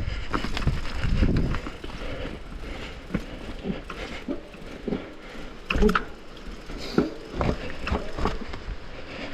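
Downhill mountain bike rolling over rough trail, with irregular knocks and rattles from the bike and a low rumble, heaviest in the first couple of seconds.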